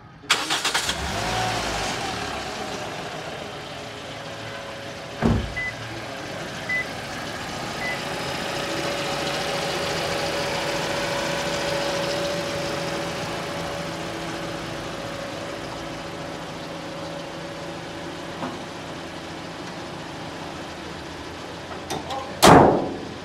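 Toyota Corolla Grande's four-cylinder VVT-i engine started just after an oil change, catching at once and settling into a steady idle. A thump comes about five seconds in, followed by three short beeps, and the bonnet is slammed shut near the end.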